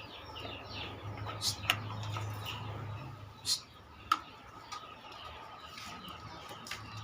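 Birds calling, with a few short, sharp chirps over a low, steady hum.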